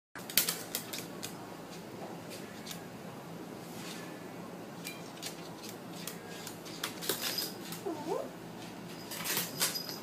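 Scattered sharp clicks and taps from an African grey parrot moving about a tabletop, with a short, faint wavering call about eight seconds in.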